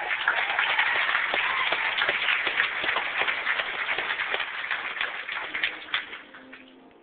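Audience applauding: dense clapping that starts at full strength, holds for several seconds, then dies away near the end.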